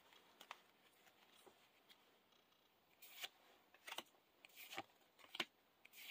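Faint flicks and slides of Yu-Gi-Oh trading cards as they are cycled one by one through a freshly opened pack. It is almost silent at first, then from about halfway there is a run of short card swishes, each under a second apart.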